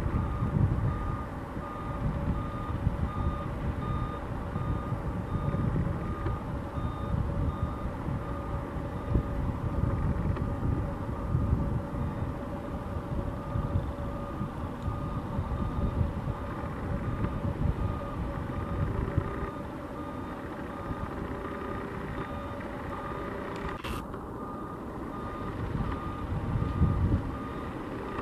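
Aircraft tug's reversing beeper sounding steadily, a regular high beep repeating about twice a second, over a low rumble as the tug moves the airliner.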